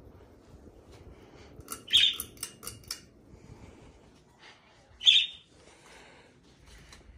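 Pet budgerigar giving two loud, sharp chirps, about two and five seconds in, the first amid a quick run of clicky chatter.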